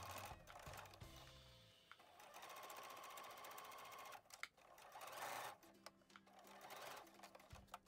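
Electric domestic sewing machine stitching in short runs, a fast, even needle rattle; the longest run lasts about two seconds, with shorter ones near the middle and end.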